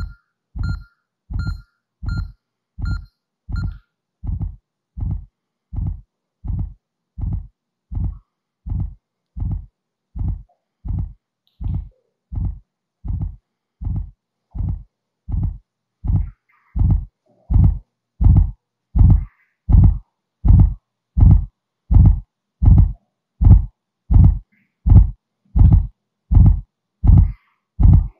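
Simulated heartbeat from the app's virtual heart: a steady, regular low thump a little more than once a second. For the first few seconds each beat comes with a short high beep, and from about halfway on the thumps grow louder.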